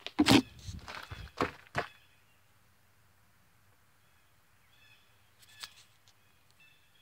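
Handling noise from a phone left recording: a quick run of loud knocks and rubbing in the first two seconds, then quiet with a few faint high chirps and a single small click later on.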